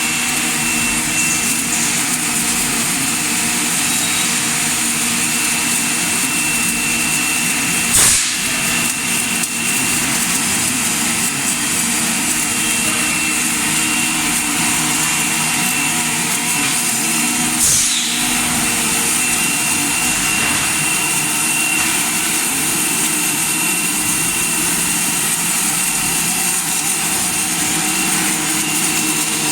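Steady hum and hiss of running industrial machinery, with a constant high tone, broken twice by a brief sharp sound, about eight seconds in and again near eighteen seconds.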